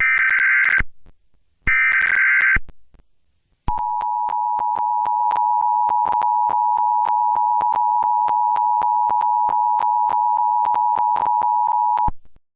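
Emergency Alert System tones: two short bursts of warbling data tones from the SAME header, then a steady two-tone EAS attention signal that holds for about eight seconds and cuts off abruptly.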